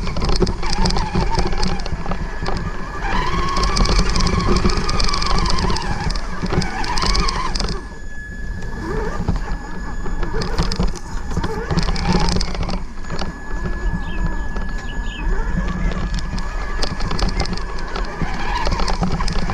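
Onboard sound of a Traxxas 1/16 Summit RC truck driving through long grass: its electric drive whines, rising and falling in pitch with the throttle, over a constant rumble and clatter from the chassis shaking on rough ground.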